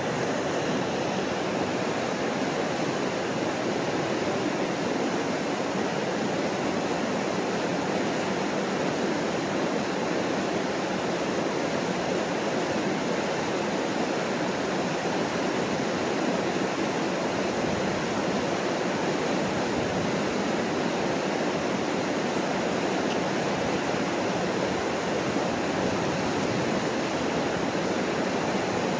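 Mississippi River water rushing steadily over a line of rock rapids, a constant, even whitewater noise.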